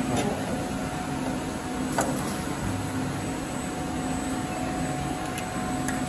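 Automatic wire terminal crimping machine humming steadily while idle, with a sharp click about two seconds in and a lighter click near the end.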